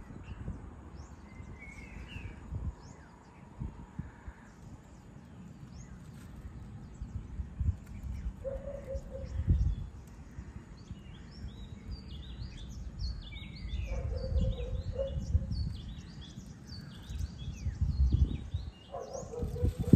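Morning outdoor ambience of small birds chirping, the chirps growing busy in the second half. A few short lower-pitched calls come through three times, over a gusty low rumble on the microphone.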